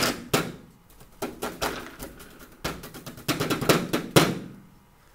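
A wide paintbrush beaten rapidly against a whiteboard and its ledge, Bob Ross-style, to knock it clean: three quick flurries of sharp wooden knocks, the longest shortly before the end.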